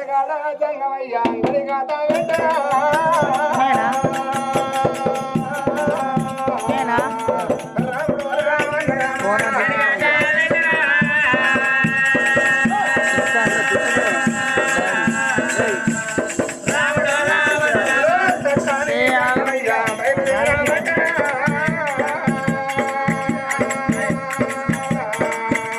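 Oggu katha folk song: male voices singing in long, bending, held notes over a fast, steady beat of drum and small cymbals. The music drops out for about a second at the start, then runs on.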